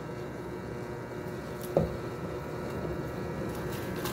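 Induction cooktop humming steadily under a stainless steel pot of broth, with one sharp knock about two seconds in.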